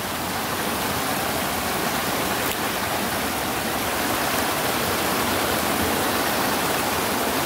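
Muddy floodwater rushing and churning over the rocks of a creek swollen by heavy overnight rain, a steady noise of white water.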